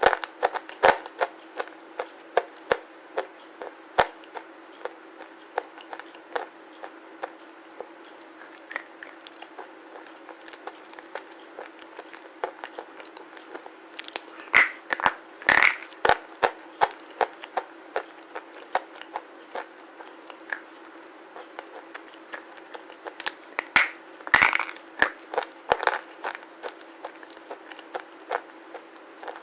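Close-miked crunching of black slate pieces being bitten and chewed: sharp crackling crunches, with louder clusters of bites at the start, about halfway through and again a few seconds later, and scattered softer chewing crunches between. A faint steady hum underneath.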